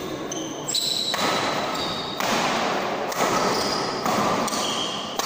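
Sounds of a badminton doubles rally: rackets hitting the shuttlecock and players' footwork on the court, with some voices in the background.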